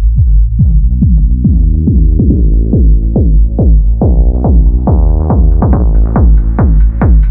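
Electronic dance music: a steady deep bass under a fast run of short synth notes, about four a second, each dropping in pitch, growing steadily brighter toward the end.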